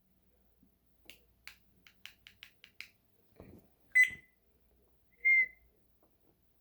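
African grey parrot making a run of about eight quick clicks, then two short, high whistles about a second and a half apart, the whistles being the loudest sounds.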